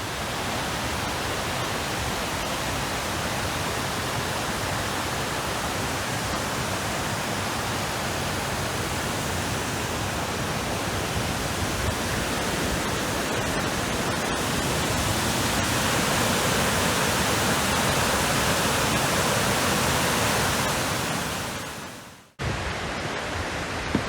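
Steady rushing roar of falling water from High Falls on the Baptism River, growing a little louder, then fading out about 22 seconds in and starting again just after.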